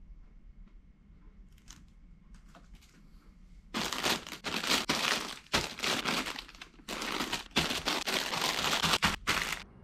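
Clear plastic bags of Gunpla model-kit runners crinkling loudly as they are handled and lifted out of the box, in a run of bursts that starts about four seconds in. Before that there are only a few faint rustles and taps.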